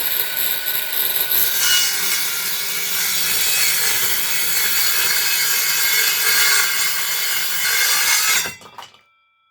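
Teeno cordless circular saw with a 165 mm, 24-tooth blade running and cutting steadily through a board of hard flooring, then cutting off suddenly near the end.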